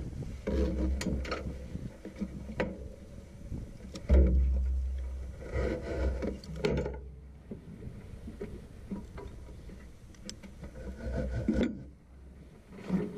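Knocks, clicks and rubbing from hands working on a parked dune buggy's frame and front end, with a gusty low rumble of wind on the microphone. There is a loud bump about four seconds in.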